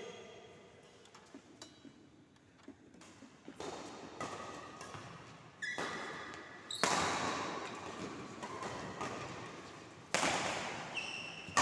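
Badminton play in a large echoing sports hall: racket strokes on the shuttlecock, quiet at first, with several loud sharp hits in the second half that ring on in the hall.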